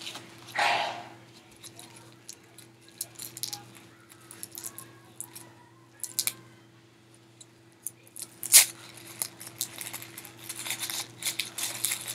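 Small plastic toy packaging handled and picked open by hand: scattered crinkles and light plastic clicks, with one sharper click about eight and a half seconds in and a run of quick clicks near the end.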